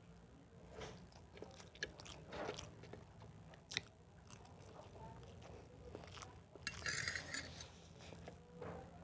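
Faint chewing and mouth sounds of someone eating rice, noodles and rolled egg, with scattered small clicks and a sharper click about four seconds in. A short hiss comes about seven seconds in.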